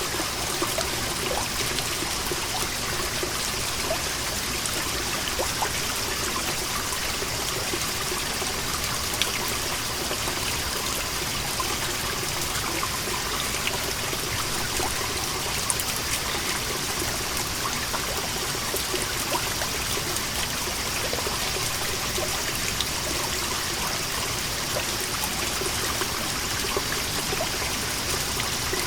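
Water seeping from a moss-covered rock wall, trickling and falling in many small scattered drips, over a steady high buzz of cicadas.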